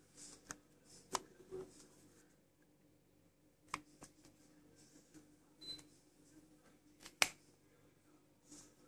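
Faint steady hum of a room air conditioner running, broken by three sharp clicks and a few softer ticks, with a short high beep about halfway through.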